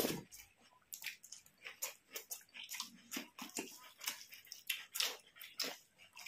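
Close eating sounds: chewing and wet lip smacks in quick, irregular clicks, from a mouthful of rice and curry.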